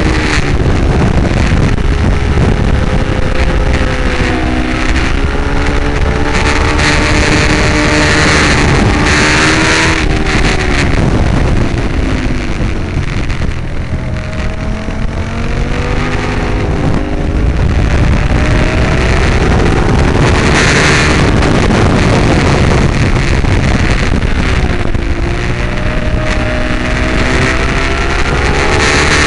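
Ducati 848's 90-degree V-twin engine under racing load, its pitch climbing and falling back again and again through the gears; the revs ease off and the engine goes quieter around the middle while the bike slows to about 55 on the dash, then it pulls hard again. Wind rushes over the microphone throughout.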